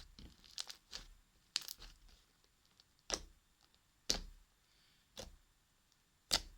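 Fluffy slime, bulked up with shaving foam, being squeezed and stretched by hand, giving sharp sticky pops and crackles, about seven of them at irregular intervals.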